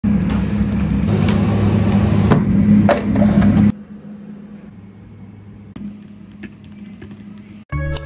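Cloth wiping across the aluminium lid of a MacBook, a loud rubbing hiss with scattered clicks, cutting off after a few seconds. A quieter stretch with a few faint clicks follows, and soft music starts suddenly near the end.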